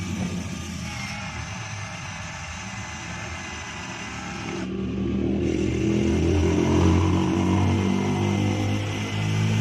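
An engine running, growing louder from about five seconds in and at its loudest near seven seconds, then easing slightly.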